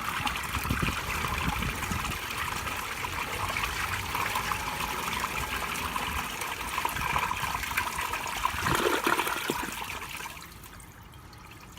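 A 1964 Standard Devoro baby toilet flushing: water rushing steadily through the bowl, then falling away to a quiet trickle about ten and a half seconds in as the flush ends.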